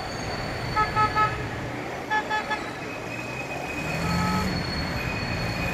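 Car horn tooting: three quick short beeps about a second in, three more just after two seconds, and one longer beep around four seconds, over steady street traffic noise.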